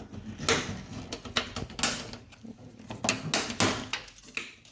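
Plastic fender-liner and trim clips being pried and pulled free: a string of irregular sharp clicks, creaks and short scrapes of plastic.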